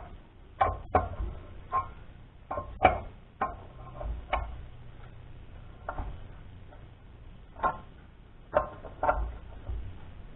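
Irregular metal clicks and clanks, about a dozen, several with a short ring, from steel bolt and arm parts being handled and tried for fit.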